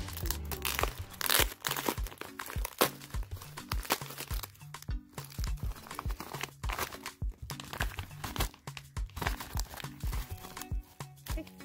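Padded mailer crinkling and rustling as it is opened and the top-loaded photocards are pulled out, with the loudest rustles between about one and three seconds in. Background music with a steady beat plays throughout.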